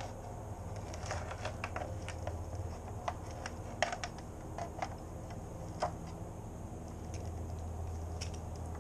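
Knife slicing a skinned sheepshead fillet along the bloodline, its blade clicking and tapping irregularly against a plastic fish-cleaning board, over a low steady hum.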